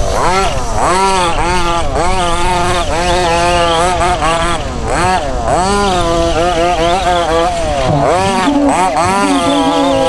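Two-stroke petrol engines of 1:5 scale RC off-road buggies racing, revving up and easing off again and again, about once a second, as they accelerate and brake through the corners. A second engine at a lower, steadier pitch joins near the end.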